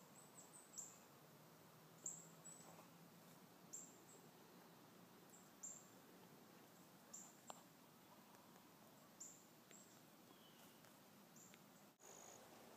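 Faint outdoor quiet with a short, high, thin chirp repeating about every one to two seconds, over a low hiss.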